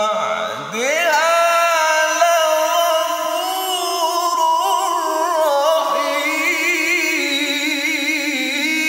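A male qari reciting the Qur'an in the melodic tilawah style, one long unbroken phrase. It opens with a swooping glide in pitch, then holds drawn-out notes, with a fast trembling ornament in the last few seconds.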